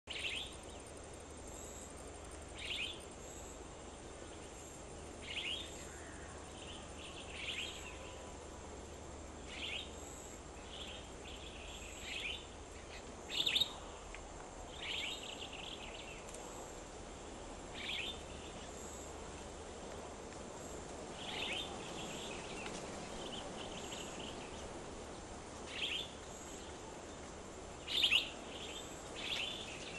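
A bird calling over and over in short, high calls every two to three seconds, some followed by a brief chatter, over a faint steady high whine and background hiss.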